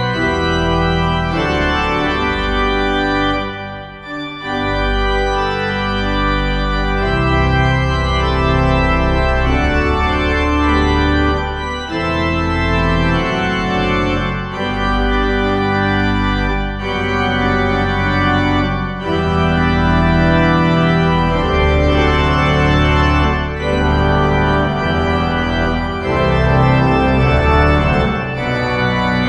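Organ playing a hymn in held chords over a steady bass, with a brief lull about four seconds in.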